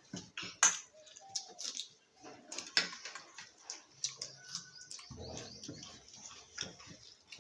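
Eating sounds: chewing and mouth smacks while eating chicken curry with rice, a string of short irregular clicks.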